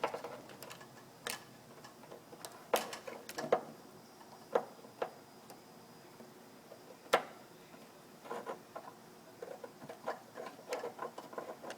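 Hands twisting car wires together to splice them: irregular small clicks and ticks of the wire ends and insulation being handled, the sharpest about seven seconds in, with a run of softer rustling clicks near the end.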